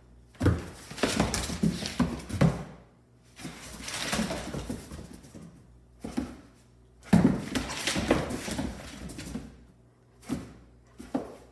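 Two Dobermans play-fighting, with growling and mouthing in several bouts of a second or two and pauses between. Their claws click and scrabble on the tile floor.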